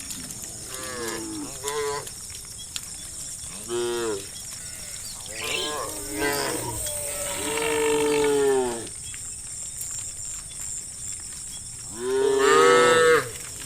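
Farm cows mooing, several calls in turn from different animals with some overlapping, a long drawn-out moo in the middle and the loudest call near the end.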